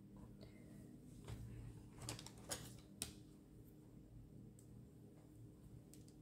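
Near silence with a low steady hum, broken by a handful of faint, short taps and clicks about one to three seconds in, the sharpest near the three-second mark, and two softer ticks later on.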